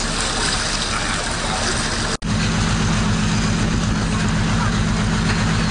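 A steady hiss, then a brief dropout about two seconds in, after which a boat's engine runs with a steady low drone.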